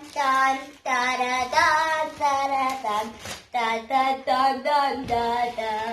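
A young girl singing in a high voice, a string of short held notes.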